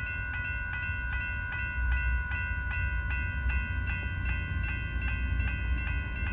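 Railroad grade-crossing bell ringing steadily at about three strokes a second, over a low rumble.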